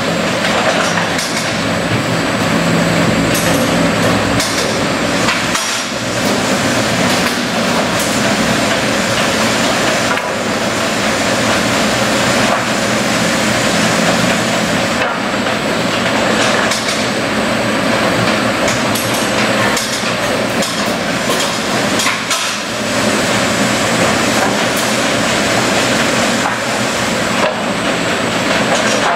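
Mereen-Johnson FastTrack infeed conveyor and rip saw running with a steady machine hum, while boards knock and clatter repeatedly on the chains and rollers. The noise dips briefly a few times.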